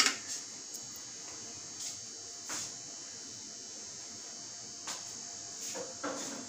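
Steady background hiss with a few faint, short knocks and clinks of a spoon against ceramic bowls as ingredients are handled on a marble counter.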